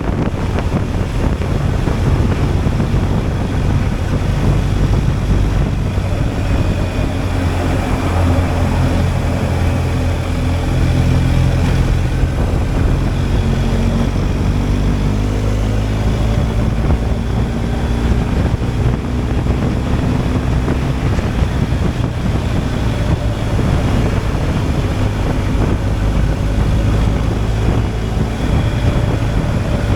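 BMW R 1250 GSA's boxer twin engine running under way, its pitch shifting up and down with the throttle through the middle, with wind rushing over the microphone.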